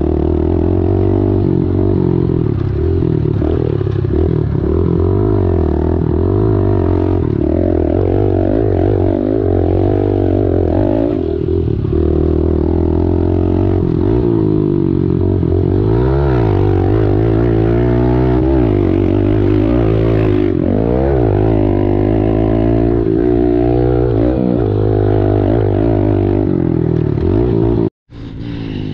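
Kawasaki KLX110 pit bike's small single-cylinder four-stroke engine running hard while riding, heard up close from the rider's seat, the revs rising and falling again and again with throttle and gear changes. It cuts off suddenly near the end.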